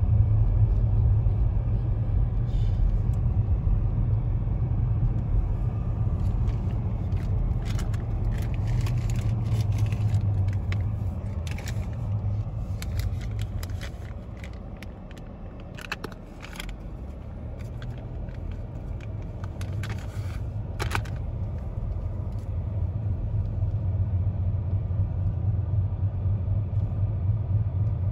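Road and engine noise inside a moving car's cabin: a steady low rumble that eases off about halfway through as the car slows, then builds again as it picks up speed. A few light clicks sound in the middle.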